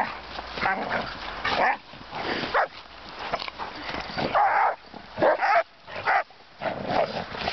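Dogs barking and yipping in short, irregular bursts during rough play, with a couple of brief lulls near the end.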